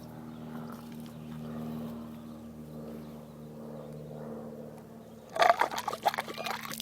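Elephant toothpaste reaction being set off: a faint liquid pouring and fizzing sound over a steady low hum, then a burst of clattering knocks about five seconds in.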